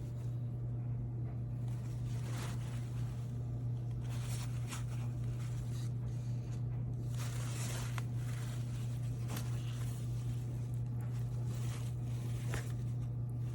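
Espresso machine running with a steady low buzz, with scattered faint clicks and rustles over it.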